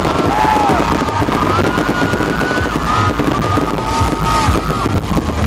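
Fireworks crackling and popping in rapid, continuous succession during a pyromusical show, with the show's music playing loudly alongside.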